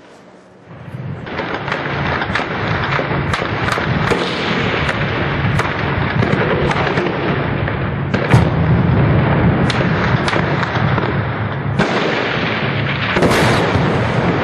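Heavy sustained gunfire in street fighting: a dense crackle of shots with many sharper, louder reports, starting about a second in and keeping up.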